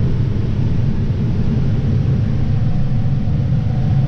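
John Deere 7930 tractor driving on the road with a grain cart in tow: a steady low drone of the diesel engine and road noise.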